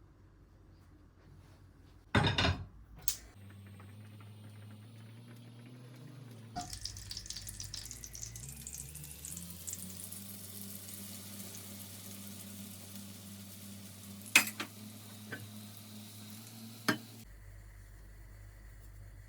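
Food sizzling as it fries in hot oil in a pan. The sizzling starts about six seconds in and runs steadily with a few sharp knocks of utensils against the pan, over a steady low hum. A loud clatter of cookware comes just before the hum starts.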